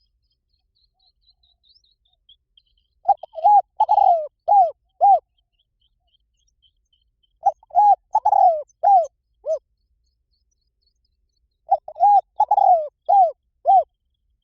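Spotted dove cooing: three phrases a few seconds apart, each a quick run of five or six low, arched coos. Faint high twittering from another small bird comes in the first seconds.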